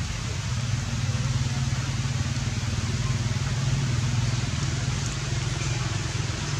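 An engine running steadily at a constant speed: a low, even hum over a hiss, with no change.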